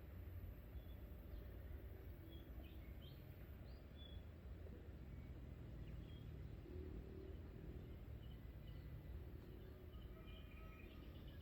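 Faint outdoor ambience: a steady low rumble with scattered short bird chirps, and a brief run of calls near the end.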